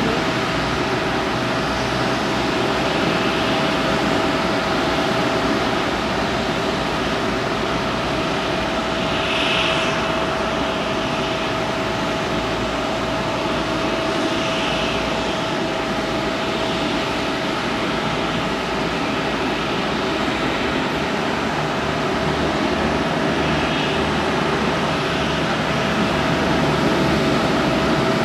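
Four Engine Alliance GP7200 turbofans of a Korean Air Airbus A380-861 running steadily at taxi power as the airliner taxis: an even jet noise with one held whining tone.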